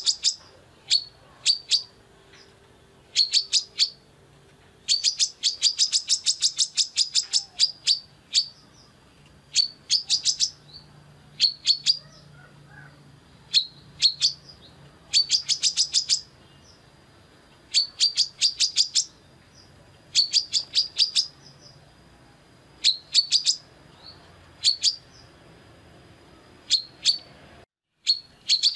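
Female brown-throated sunbird (kolibri kelapa) calling in short, rapid bursts of sharp high chirps. Each burst is a quick run of several notes, and the bursts repeat every second or two.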